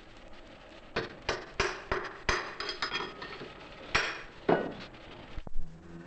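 A farrier's hammer striking a horseshoe held in a vise: about eight sharp metal blows at uneven intervals, some leaving a brief metallic ring.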